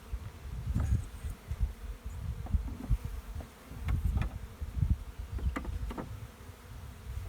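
Many honey bees buzzing en masse as a package colony settles into the hive, the drone rising and falling unevenly, with a few light clicks.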